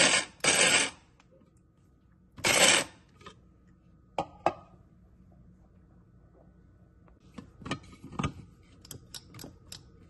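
KitchenAid blade coffee grinder pulsed in short bursts, twice, chopping whole coffee beans to a coarse grind. Then sharp clicks and lighter taps as the stainless grinding bowl full of grounds is lifted out and handled.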